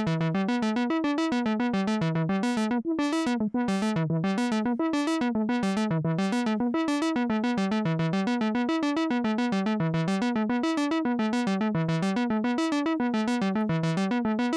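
Moog Mother-32 analog synthesizer playing a fast repeating sequence of low notes, the filter opening and closing in waves so the notes grow brighter and duller. An LFO sweeps the filter cutoff while the envelope also drives it, the amount set through the VC Mix knob.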